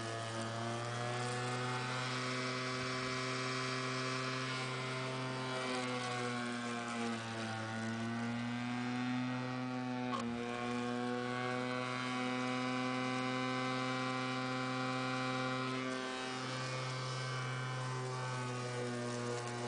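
Walk-behind lawn mower running steadily, its pitch sagging briefly twice.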